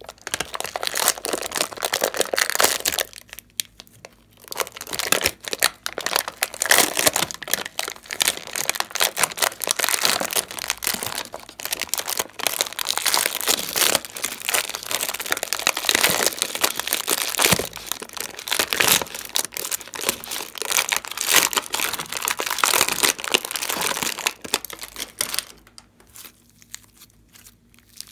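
Slime squeezed and scooped by hand out of a thin plastic tray: dense crackling, crinkling and squishing, with a short lull about three seconds in and quieter near the end.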